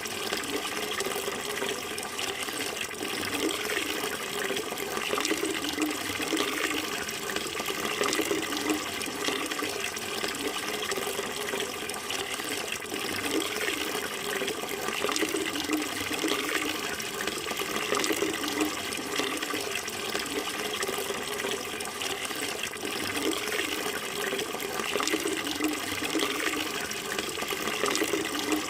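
Water running steadily: an even, unbroken rush with a fluttering low gurgle, no pauses or changes.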